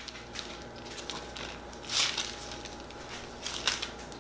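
Parchment paper crinkling and rustling under hands rolling up ham-and-cheese-topped raw chicken breasts, with a louder rustle about two seconds in and another shortly before the end.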